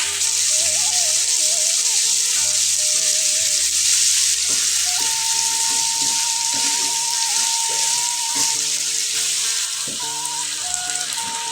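Food frying in hot oil in a pan, sizzling steadily, with a few short knocks as it is stirred.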